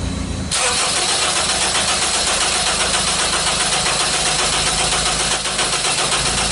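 Honda CR-V's K20 four-cylinder engine being cranked over on the starter for about six seconds, starting abruptly and cutting off sharply. This is the crank-no-start complaint: the coil fires late, which the mechanic takes for a cam/crank timing problem (P0341 incorrect phase).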